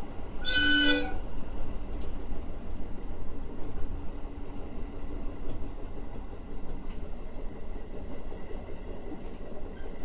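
A short train horn toot about half a second in, one pitched blast lasting about half a second, over the steady running rumble of an electric commuter train heard from its front car as it pulls into a station.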